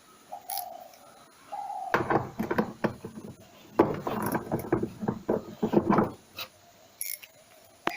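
Clattering and knocking of washing-machine parts being handled and taken apart, in two busy stretches. Before them come two short squeaks.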